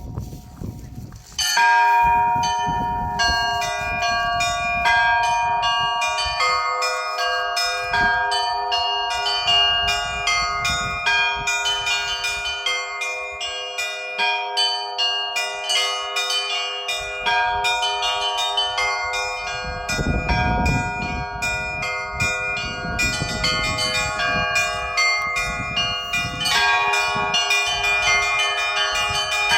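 Russian Orthodox church bells rung in a full peal: quick, rhythmic strikes of the small high bells over the long ring of lower bells. It starts suddenly about a second and a half in.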